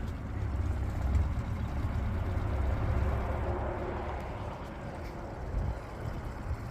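Yamaha 8 hp outboard motor running steadily with a low rumble, slightly louder between about one and three seconds in.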